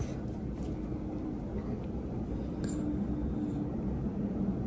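Quiet room tone: a low, steady background rumble with a faint hum in the middle and one faint click about two and a half seconds in.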